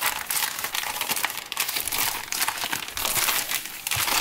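Plastic postal mailer bag crinkling and rustling as hands work it open and reach inside, a continuous crackle of handled plastic.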